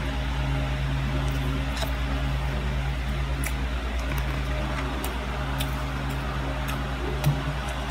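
Steady low machine hum over an even hiss, with a few faint light clicks and one short soft knock near the end.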